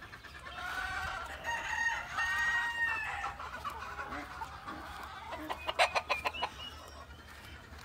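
Backyard chickens calling: a rooster crows once, a long drawn-out call starting about a second and a half in, and later a quick run of short, sharp clucks around six seconds in.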